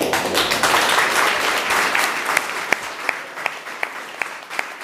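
Audience applauding: the clapping starts suddenly, is fullest in the first couple of seconds, then thins so that single sharp claps stand out, a few a second.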